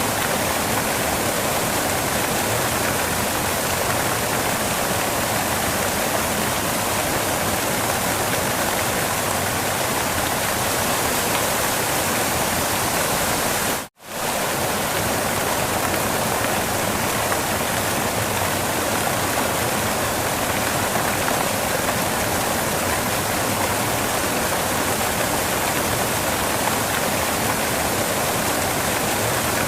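Waterfall rushing steadily. It cuts out for an instant about halfway through, then carries on unchanged.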